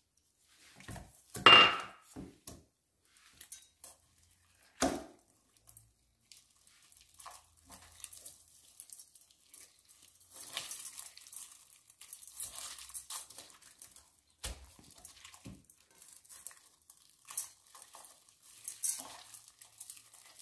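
Dry flattened green rice (khao mao) being crumbled by a gloved hand out of a pressed, hard block in a stainless steel bowl: scattered rustling and crackling of grains, thicker from about ten seconds in. A few knocks and clinks, the loudest about a second and a half in with a brief ring.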